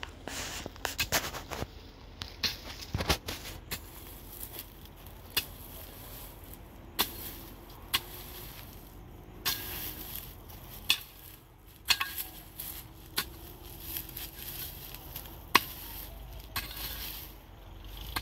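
Pickaxe striking hard, dry ground: irregular sharp hits roughly once a second, with scraping and crackling of loosened soil between them.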